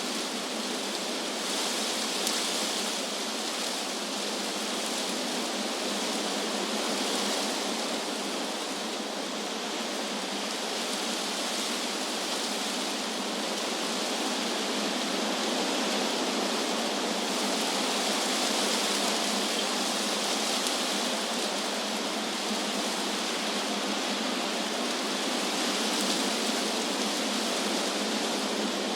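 Wind rustling through tree leaves: a steady hiss whose upper part swells and eases gently every few seconds.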